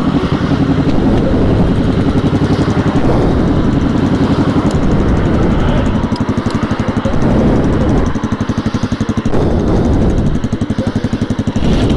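Sport motorcycle engine running at low speed, settling into a pulsing idle over the last few seconds.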